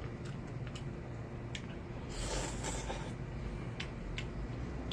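Eating noises: chopsticks clicking a few times against a metal pot, and one loud airy slurp of about a second, a little past two seconds in, as rabokki noodles are sucked up.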